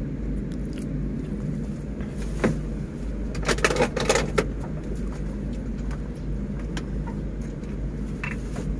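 Old truck's engine idling steadily, heard from inside the cab, with a knock about two and a half seconds in and a short burst of knocks and clatter a second later.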